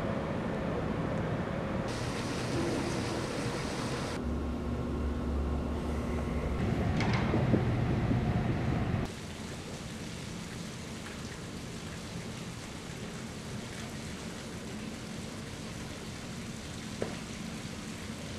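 Outdoor ambient noise with a low rumble and hum, busier and louder for the first nine seconds, then cutting sharply to a quieter, steady hiss.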